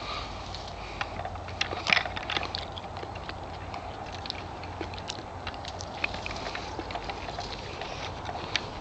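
Cherry leaves and twigs rustling and stems snapping as cherries are picked by hand from the tree: scattered small clicks and crackles, a short cluster about two seconds in, over a steady low rumble.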